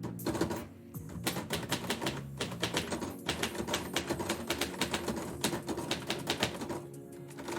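Typewriter keys striking in a fast, uneven run of keystrokes, with a short pause about a second in. The typing stops near the end.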